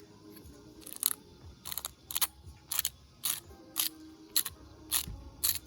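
A hand salt grinder twisted over food in about ten short, evenly spaced grinding strokes, roughly two a second.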